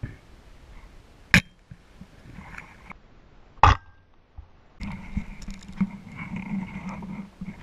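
Sound recorded underwater during a spearfishing dive: two sharp knocks a couple of seconds apart, then a steady low hum with faint crackling from about five seconds in.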